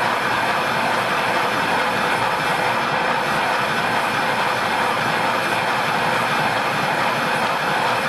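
Kirk-Rudy KR219RSDF plow-fold system running steadily, giving an even, continuous mechanical noise with no breaks.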